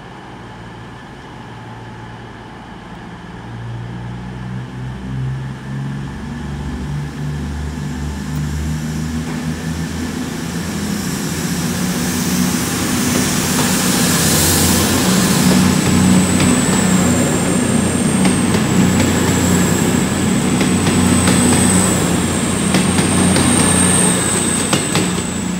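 CrossCountry Class 221 Super Voyager diesel multiple unit pulling out, its underfloor diesel engines running under power and growing steadily louder as it goes by. A high, wavering squeal joins in for the second half.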